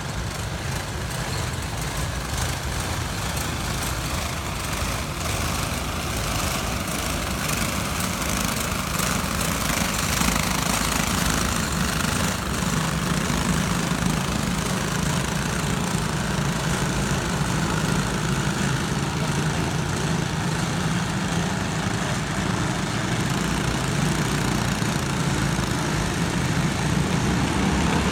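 Racing kart engines running as the field laps the track, a steady engine drone that grows gradually louder.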